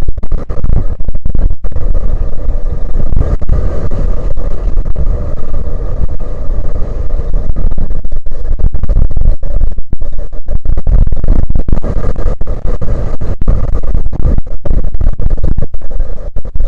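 Strong wind buffeting the microphone: a loud, gusty low rumble broken by many brief dropouts.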